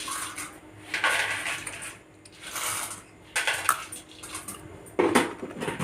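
Water running and splashing in several short bursts, as in rinsing or washing at a kitchen sink.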